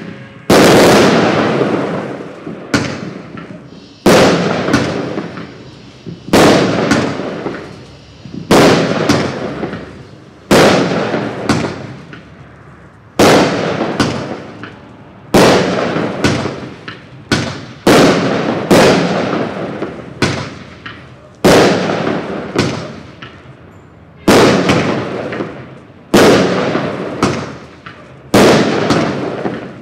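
A Black Cat 'Two Minute Fireworks Show' 63-shot consumer fireworks cake firing shot after shot, about two dozen sharp bangs roughly every second or so. Each bang fades away over about a second before the next.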